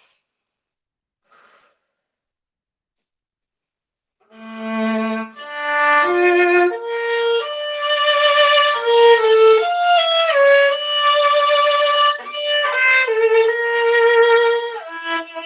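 Solo viola being bowed: after about four seconds of near silence it starts on a low held note, then plays a melodic line of bowed notes, some held and some moving quickly.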